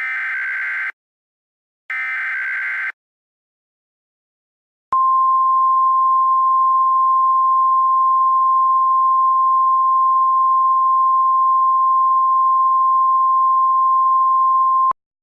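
Two short bursts of Emergency Alert System SAME header data, each a harsh warbling screech about a second long and a second apart. After a silent pause of about two seconds, the steady single-pitch 1050 Hz weather radio warning tone sounds for about ten seconds and cuts off sharply. This is the header and attention tone that open a new emergency alert.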